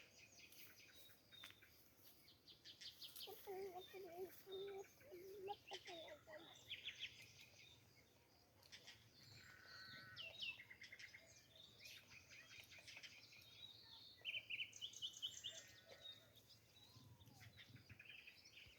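Faint birds chirping in scattered short calls, with a distant voice heard faintly a few seconds in.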